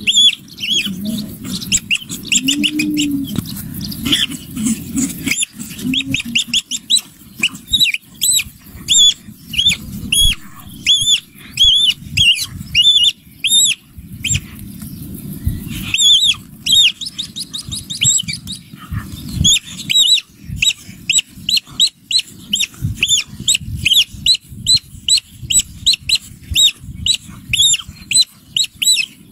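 Rapid, high-pitched animal squeaks or peeps, about two a second, with a short lull about halfway through, over a steady low noise.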